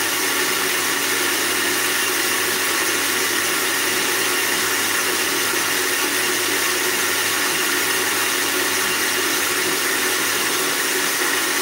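Philips countertop jug blender motor running steadily, puréeing raspberries in sugar syrup into a coulis: an even whir with a few held tones over a hiss.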